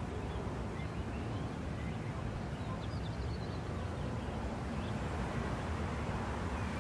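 Steady low rumble of outdoor city ambience with a few faint bird chirps.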